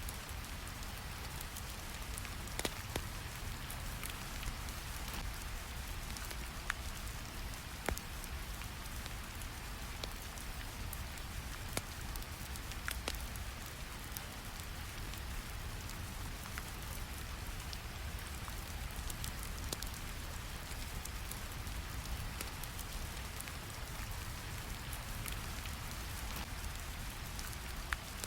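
Steady rain over a low, even brown-noise rumble, with scattered sharp crackles from a wood fire.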